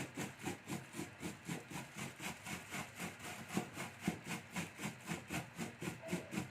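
Molokhia leaves being chopped with a makhrata, a two-handled rocking blade, inside a plastic bag laid on a towel: a steady rhythm of about four strokes a second.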